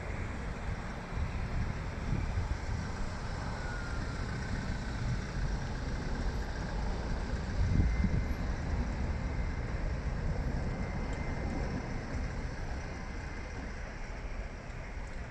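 Distant rumble of a Qantas Boeing 747-400's four Rolls-Royce RB211 turbofans as the jet climbs away after takeoff, a steady roar with low gusts of wind buffeting the microphone.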